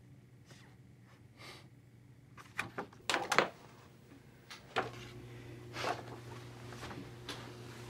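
A few light knocks and clicks of objects being handled and set down on a cluttered wooden dresser, the loudest cluster about three seconds in. A low steady hum comes in about five seconds in.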